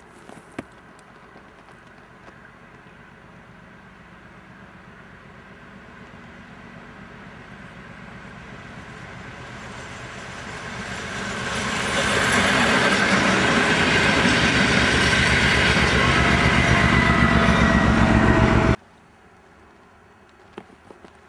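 D1 diesel multiple unit approaching and passing close by: its diesel engine and wheels grow steadily louder over about twelve seconds, then run loud and steady as it goes past, until the sound cuts off suddenly near the end.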